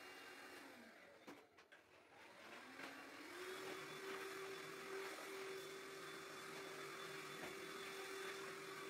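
Stick vacuum cleaner's motor winding down to a stop about a second in, with a few handling clicks while it is off. Its motor then spins back up near the three-second mark and runs at a steady whine.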